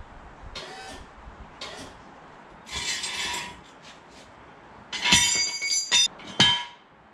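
Metal being handled: a few short scrapes and a longer rustling scrape, then a loud ringing metal clank about five seconds in, followed by two sharper clanks.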